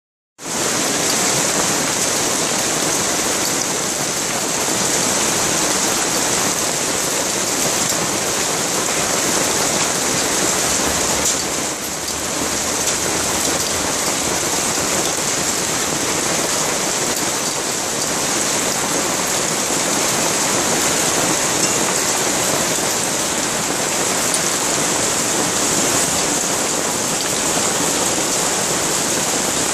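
Hail and heavy rain falling in a cloudburst onto paving stones: a steady, dense hiss of pellets and drops that does not let up.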